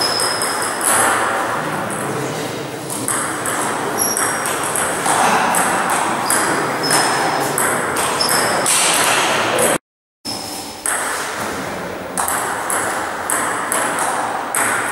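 Table tennis ball being hit back and forth with rubber-faced paddles and bouncing on the table during rallies: a quick series of sharp clicks. The sound cuts out completely for a moment about ten seconds in.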